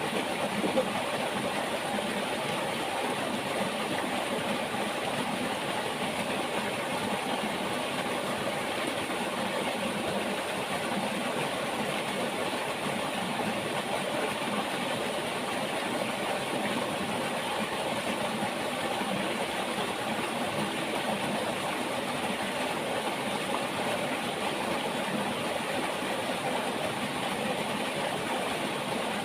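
River water flowing steadily, an even, unbroken wash of water sound, with one brief click about a second in.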